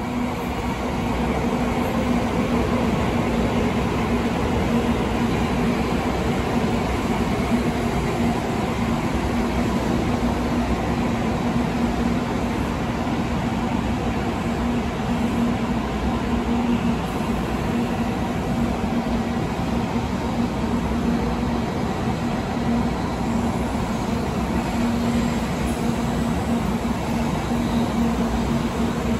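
N700-series Shinkansen train running slowly along the station tracks: a steady rumble of wheels and running gear with a low, constant hum, swelling over the first two seconds and then holding even.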